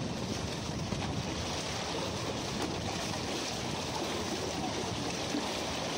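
Steady wash of sea waves, with some wind on the microphone.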